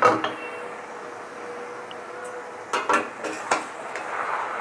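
Metal spatula knocking and scraping against a steel kadai while stirring spinach and fish head pieces: a clink right at the start, then a quick run of clinks about three seconds in.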